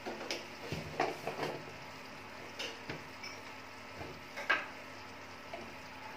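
Light clicks and knocks of plastic spice jars and their lids being handled, about half a dozen, the sharpest about four and a half seconds in, over a faint steady low hum.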